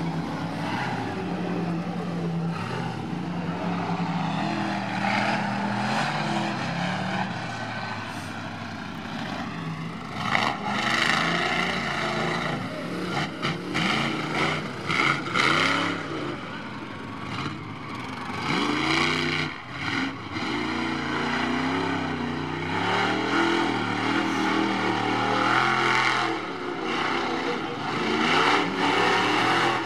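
Mud-racing truck engines revving hard, the pitch climbing and falling again and again, with louder surges between about ten and sixteen seconds in and again near the end.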